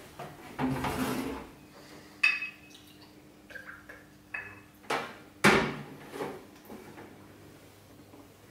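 Glass bottle and shot glasses on a table: a clink with a brief ring, vodka poured into the shot glasses with small tinkles, then sharp knocks of glass set down, the loudest two about five seconds in. A short noisy swell about a second in.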